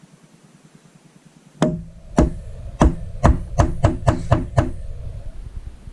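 Spine whack test on a Microtech MSI folding knife: the back of the open blade is struck hard against a surface about nine times, sharp knocks that come faster toward the end. It tests whether the RAM lock gives way, and the lock holds.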